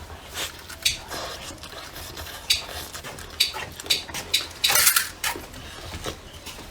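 Bowls, plates and utensils clinking and clattering at the table in irregular sharp clicks, with a louder, longer clatter about five seconds in.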